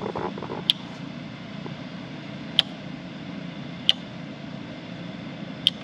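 Dash rocker switches on an aftermarket switch panel being flipped, four separate sharp clicks a second or two apart, over a steady low hum.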